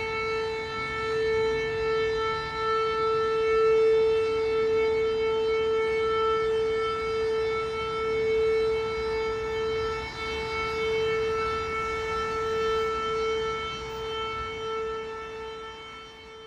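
Air-raid siren sounding one steady, unchanging tone, a public alert signal. It wavers slightly in loudness and fades away over the last few seconds.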